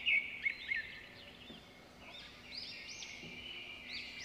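Small birds chirping in the background: a quick run of high chirps in the first second, then after a short lull more arching, whistled notes. A faint steady low hum runs underneath.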